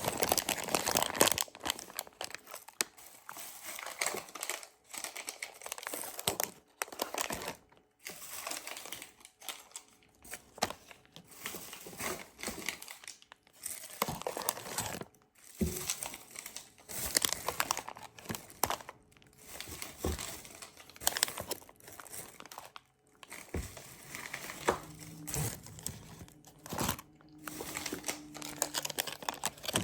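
Small plastic-foil GoGo's Crazy Bones packs crinkling and rustling in irregular bursts as they are handled and sorted.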